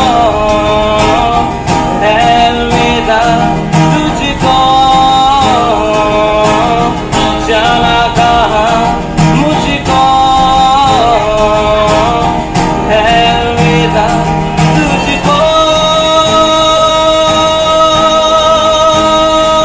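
A man singing a slow Hindi song to his own acoustic guitar strumming. Near the end he holds one long note with a slight waver.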